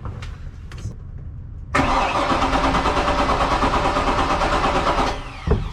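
Starter cranking a Volvo Penta 5.7 GSi throttle-body-injected V8 marine engine for about three seconds with an even, rapid chugging rhythm. The engine turns over without firing, the sign of its no-start fault, and the cranking stops abruptly, followed by a short thump.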